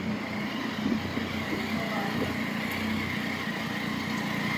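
Steady mechanical background hum with a constant high-pitched whine, with no distinct knocks or tool strikes.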